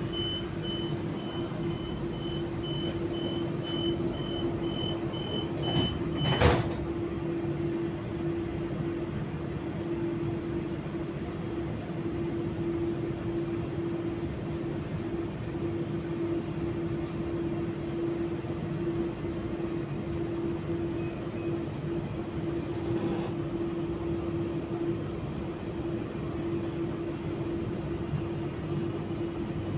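Auckland AM-class electric train humming steadily while stopped at a platform. Rapid high-pitched beeping sounds for the first six seconds and ends with a single loud knock.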